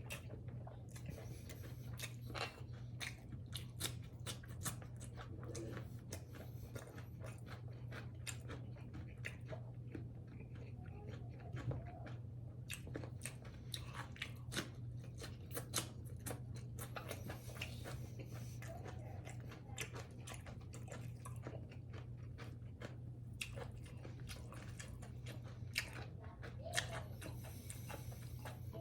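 Close-miked chewing of a meal of pork, greens and rice, with many short wet mouth clicks and bites throughout. Underneath runs a steady low hum.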